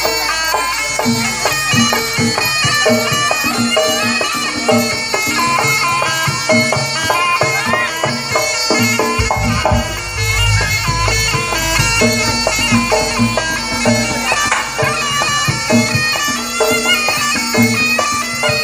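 Javanese kuda lumping (hobby-horse dance) accompaniment: a reedy wind instrument playing a wailing melody over a steady beat of drums and other percussion.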